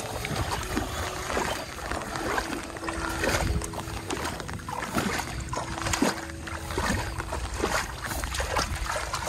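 Feet wading through shallow muddy water in a flooded rice paddy, with irregular splashes and sloshes. At first a woven basket of rice seedlings is dragged through the water.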